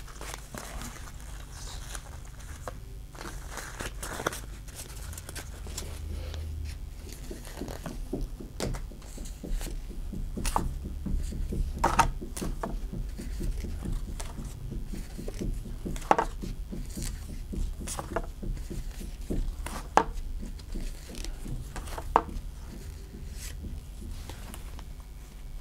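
Trading cards being handled and flipped through one by one by gloved hands: soft rustling and sliding, with scattered sharp clicks of card edges.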